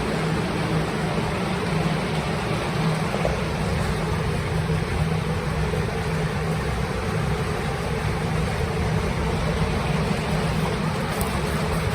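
Plastic air-mover blower fans running steadily, a constant rush of air with a low hum, set up to dry a water-soaked ceiling.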